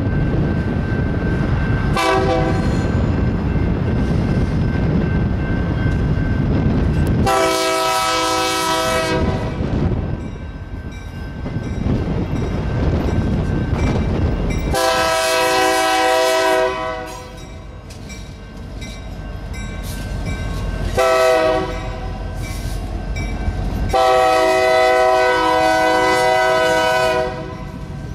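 Diesel freight locomotive horn sounding a brief toot, then long, long, short, long: the standard grade-crossing signal. A low rumble of the passing diesel locomotives and railcars runs underneath.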